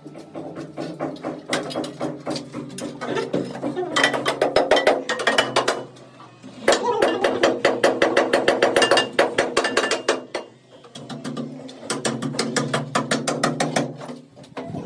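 Rapid mechanical ratcheting clicks in three bursts of a few seconds each, from a tool at work.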